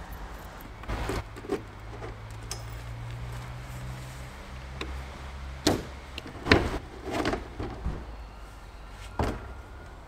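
A series of sharp clunks and knocks as a car roof box is unlatched, its lid lifted and gear inside handled, about half a dozen over several seconds.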